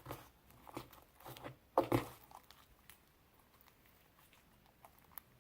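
Homemade slime squelching and clicking under the fingers as lotion is mixed into it. A run of short wet squishes comes over the first two seconds, the loudest just before two seconds in.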